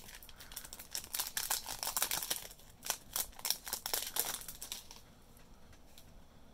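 Foil wrapper of a Topps Chrome baseball card pack crinkling and crackling as it is pulled open by hand and the cards are slid out. The dense crackling dies down about five seconds in.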